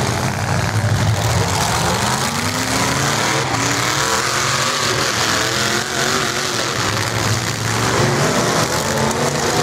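Several demolition derby trucks' engines running and revving together, their pitches rising and falling.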